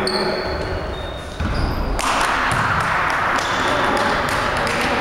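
Basketball game sounds on a gym's hardwood court: short sneaker squeaks near the start, then running footsteps and dribbling echoing in the hall over a steady rush of noise.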